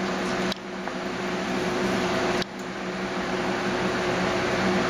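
Steady machine hum with a hiss, like a running fan or air-conditioning unit. It drops abruptly twice, about half a second and about two and a half seconds in, and swells back up each time.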